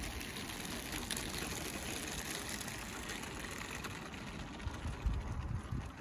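Small battery-powered model locomotive running along garden-railway track, its motor and gearing making a steady whirr with faint ticks from the wheels on the rails as the train passes close and moves away. Low gusts of wind on the microphone near the end.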